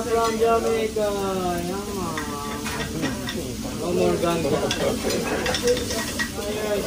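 Fried rice sizzling on a steel teppanyaki griddle, with sharp clicks and scrapes from the chef's spatula working the rice against the hot plate. A drawn-out voice carries over the first couple of seconds.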